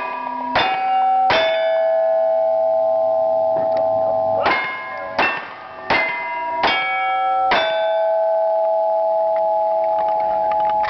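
Revolver shots, each followed by the ring of a struck steel target: three shots in quick succession, a pause of about three seconds with a steel plate still ringing, then five more shots under a second apart. The steel keeps ringing for about three seconds after the last shot.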